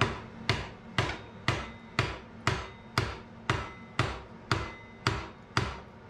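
Hand hammer striking the top of a red-hot iron bar clamped upright in a bench vise, about two even blows a second, each with a short metallic ring.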